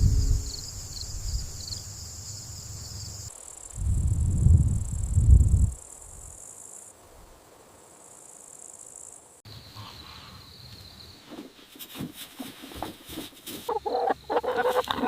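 Crickets chirping in a steady high trill whose pitch changes abruptly at a couple of points. About four to five seconds in come two loud, low rumbles, and near the end a run of irregular knocks and clicks.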